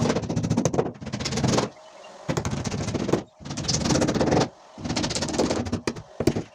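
Woodworking tool noise coming in about five bursts of roughly a second each, every burst a rapid rattle of fine ticks, with short pauses between them.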